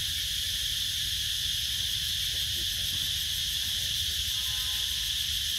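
Steady chorus of forest insects, a constant high-pitched hiss that does not change, over a low rumble.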